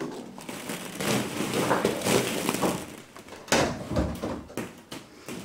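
Hollow plastic ball pit balls rustling and clattering against each other as they are stirred and thrown, with a sharper knock about three and a half seconds in.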